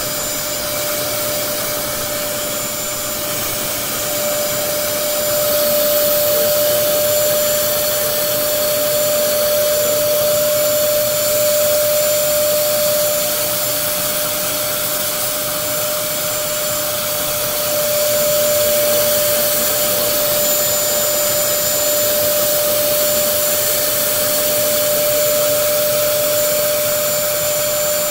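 Bissell DeepClean Premier carpet cleaner running: a steady motor whine over a dense rushing hiss, swelling and easing slightly in loudness as it works the carpet.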